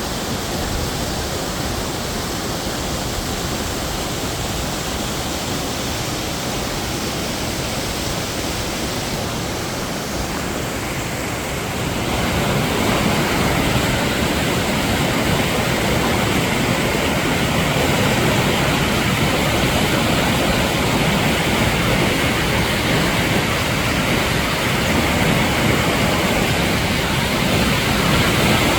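Mountain valley stream rushing over rocks in a steady wash of water noise, growing louder and brighter about twelve seconds in.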